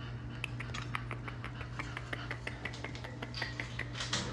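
Quick, irregular small clicks and smacks, several a second, over a steady low hum.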